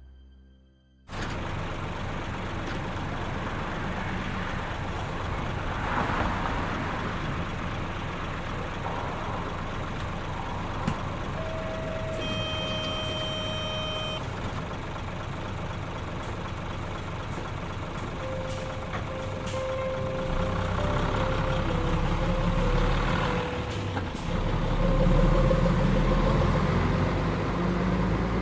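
Claas Lexion combine harvesters running in the field, with diesel engines and threshing machinery making a steady rumble that cuts in about a second in. A tone sounds for about two seconds near the middle. The low rumble grows louder in the last third, as if a machine comes closer.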